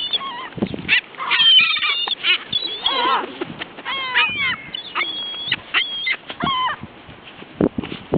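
A flock of seagulls calling over and over, many short harsh calls one after another and overlapping, as they crowd in for thrown food.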